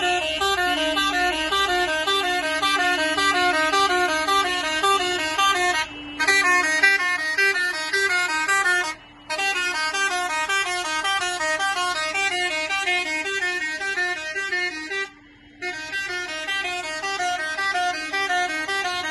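Vehicle horns sounding without pause in a fast, even two-tone alternating pattern. It breaks off briefly three times.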